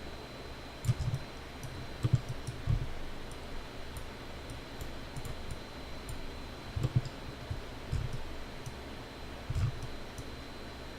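Computer mouse clicking at irregular intervals while points are placed in dental CAD software, with a few dull thumps, the loudest sounds, against the desk or microphone. A faint steady high-pitched whine runs underneath.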